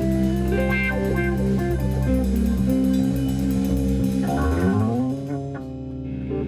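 Live rock-blues band playing: electric guitar lines over bass guitar and a drum kit. About four and a half seconds in there is a rising pitch slide, then the drums stop and the guitars and bass ring on more quietly.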